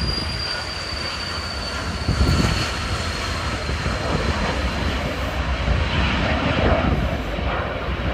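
Twin Williams FJ44 turbofans of a Cessna Citation CJ2 at takeoff thrust as the jet rolls past and lifts off: a steady jet roar with a high whine that falls slightly in pitch and fades about halfway through.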